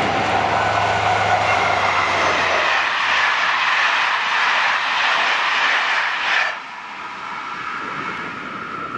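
CC 72100-class diesel locomotive (CC 72189) hauling Intercités coaches passes at speed. The locomotive's low engine drone fills the first couple of seconds, then gives way to the steady rush of the coaches' wheels on the rails. This drops off suddenly about six and a half seconds in, leaving a fading rumble.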